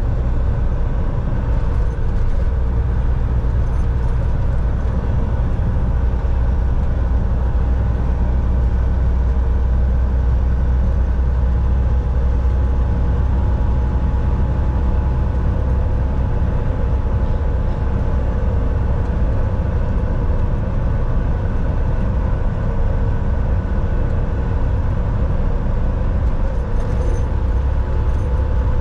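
Volvo VNL 760 semi truck driving at a steady speed: a constant low rumble of engine and road noise, with a few faint steady tones held above it.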